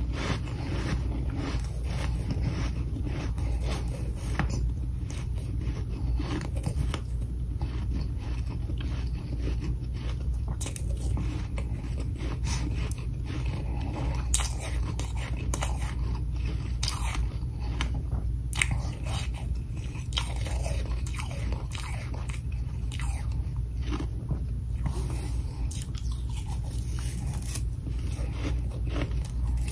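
Close-miked chewing and crunching of mouthfuls of powdery freezer frost: a dense, irregular run of small crunches.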